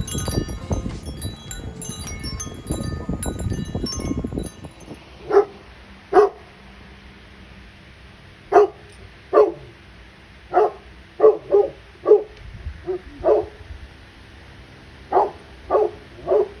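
Chiming music for the first few seconds, cutting off suddenly; then a dog barking, about a dozen short single barks at uneven gaps.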